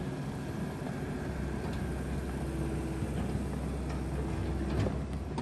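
Skid loader engine running steadily as it pushes a gravity wagon toward the shed, with a few faint clicks.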